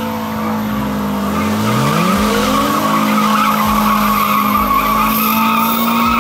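Car burnout: the engine revs up about a second in and is then held high and steady while the spinning rear tyre squeals against the pavement.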